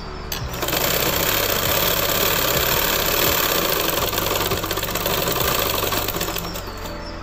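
Domestic sewing machine running fast as it stitches a folded hem, a dense, steady mechanical rattle that starts about half a second in and stops about a second before the end.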